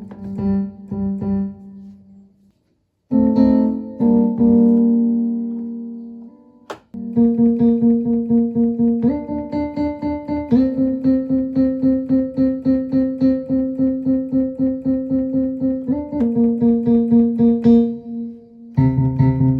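Roland Juno-Di synthesizer playing a piano-like sound: a few held notes and chords, then rapidly repeated notes about three to four a second. The pitch steps up and back down a couple of times as the pitch bend is worked; its faulty pitch bend doesn't hold the same tune.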